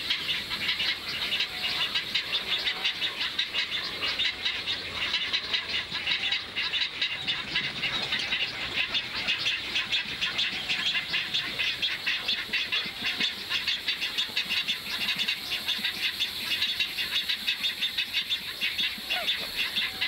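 A high-pitched chorus of calling animals, a dense, fast, steady pulsing.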